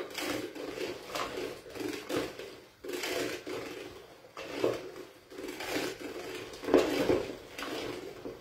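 Hand-cranked food mill (passaverdure) grinding and scraping in uneven strokes, about one a second, as cooked chard or spinach is forced through the disc. The greens keep jamming it and will not pass easily.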